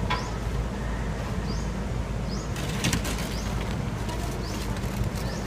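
Woven plastic sacks rustling and crinkling as they are rummaged through, with a flurry of crackles about halfway in. Under it runs a steady low rumble, and a few short, high bird chirps come in now and then.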